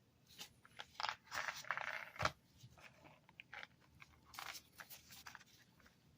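Packaging of Halls Minis cough drops being handled and opened: irregular crinkling and crackling, with one sharp snap a little over two seconds in.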